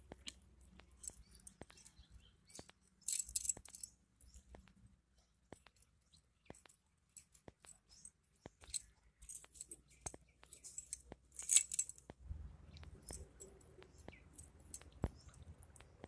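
Faint rustling and crackling of dry straw being pulled apart by hand, with many small scattered clicks and a few brief louder crackles, about three seconds in and again past the middle.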